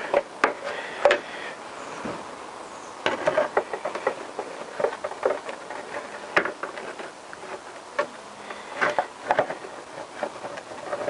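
Plastic motorcycle headlight fairing being handled and fitted against its metal brackets: irregular light knocks, clicks and rubbing, a few sharper taps among them.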